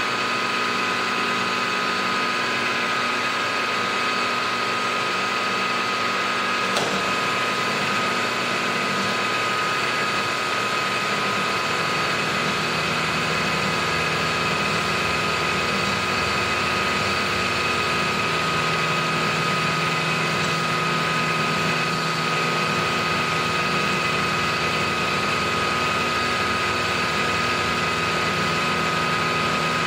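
Milling machine running with an end mill cutting a 45-degree bevel across a metal block: a steady machine hum and whine with a constant high tone throughout.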